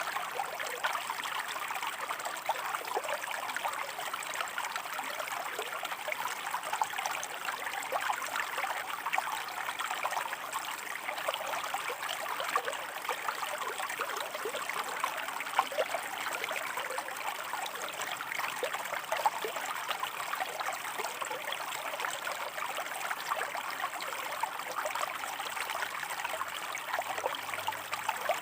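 A shallow stream running over rocks: a steady babble of water, with small splashes and trickles.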